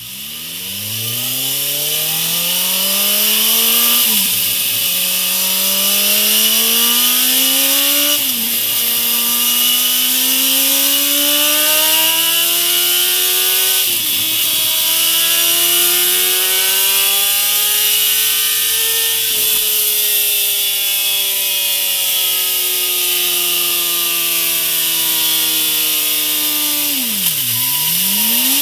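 BMW S1000RR inline-four engine with its stock exhaust, run hard on a rear-wheel dyno. The revs climb and the pitch drops sharply at each upshift, four times, with the climbs lasting longer in the higher gears. Near the end the revs fall steeply and pick up again.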